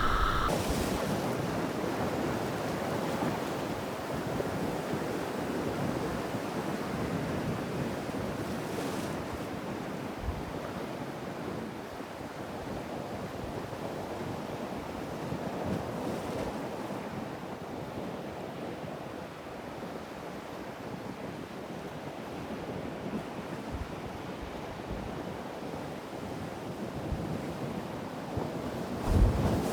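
Sea surf washing steadily, with wind buffeting the microphone. A brief knock near the end.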